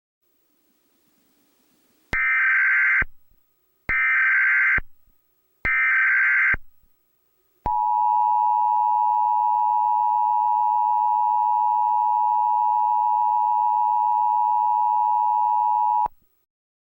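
Emergency Alert System tones. Three short bursts of SAME header data, each just under a second, begin about two seconds in. After a brief pause comes the steady two-tone EAS attention signal, held for about eight seconds before it cuts off. Together they mark the start of an emergency alert, here a test.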